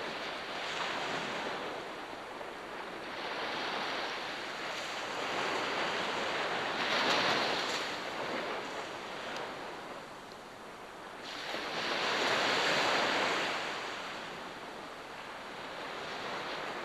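Sea waves breaking and washing on the shore, a steady rush that swells and falls back, with the biggest surges about seven and twelve seconds in.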